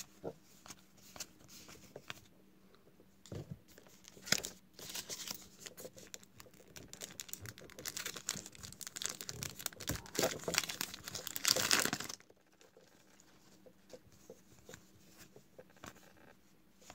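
A paper-foil trading card pack wrapper being torn open and crinkled in the hands, a dense crackle lasting several seconds that stops abruptly about twelve seconds in, then only faint handling of the cards.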